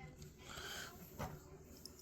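Faint small handling noises: a soft hiss, then a single light click about a second in.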